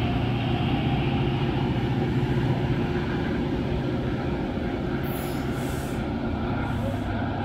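Metrolink commuter train of bilevel coaches rolling past and drawing away: a steady rumble of wheels on rail with a low engine hum that fades slightly, and a few short hisses in the second half.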